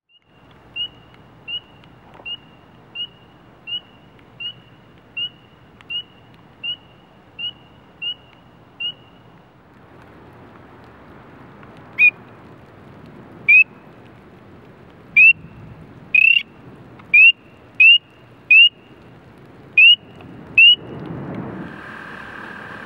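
Spring peeper calling: single short, rising peeps, fainter and evenly spaced at first, then louder after a pause of a few seconds. Near the end an American toad's long, steady trill begins.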